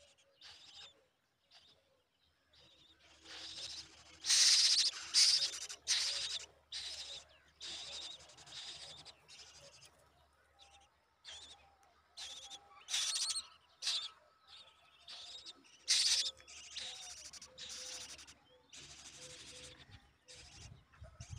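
House crow nestlings begging at the nest while a parent feeds them: many short, harsh, noisy calls in quick bursts, loudest a few seconds in and again twice later.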